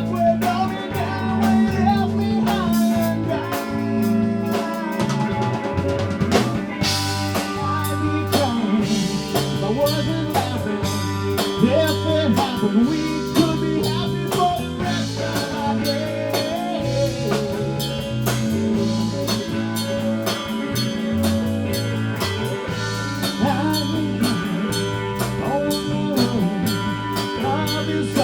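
A band playing an instrumental passage of a song: a drum kit keeping a steady beat under guitar lines and a moving low bass part.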